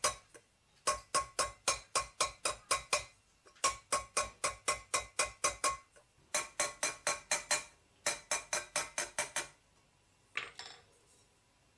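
Metal hammer striking a silver vessel held over a metal stake: quick ringing blows, about four or five a second, in four runs with short pauses. The blows draw in the silver, shaping and stretching the metal. Near the end comes one duller clatter.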